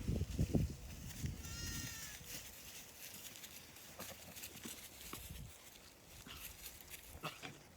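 A Blackbelly sheep lamb gives one short, high bleat about a second and a half in, after a low rumbling noise in the first second; faint scattered clicks and rustles follow.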